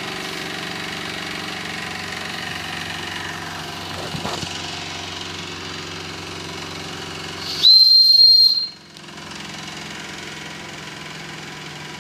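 Wilesco D18 model steam engine running steadily, then its steam whistle is blown once past the middle: a loud, high, steady whistle lasting about a second that cuts off sharply.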